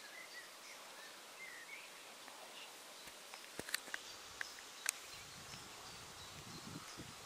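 Faint outdoor background with small bird chirps in the first couple of seconds, and a few sharp clicks about halfway through.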